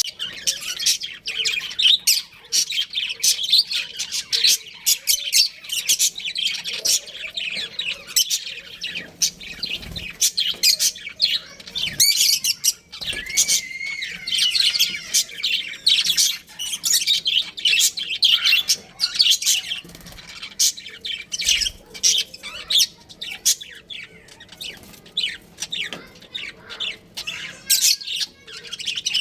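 Budgerigars chirping and chattering in a rapid, continuous stream of short high chirps, with a brief whistled warble a little before halfway.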